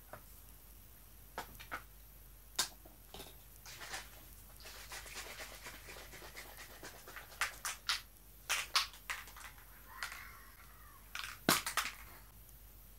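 Makeup products and their plastic containers being handled: scattered taps and clicks with soft rustling in between. The loudest sharp click comes about a second and a half before the end, as a black cap comes off a container.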